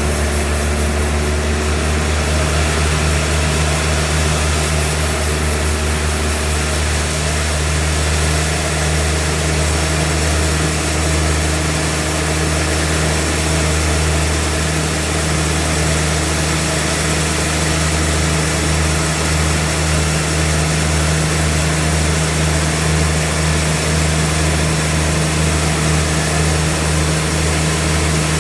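Sawmill engine running steadily, its low drone holding the same pitch throughout.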